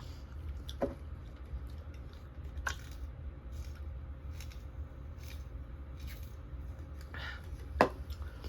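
Close-miked eating sounds: soft wet chewing with scattered sharp mouth clicks, the loudest click about three-quarters of the way through.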